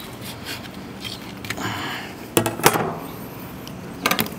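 A metal kebab skewer scraping as grilled pork cubes are pushed off it onto a metal tray, with a few sharp metallic clicks and clinks about two and a half seconds in and again near the end.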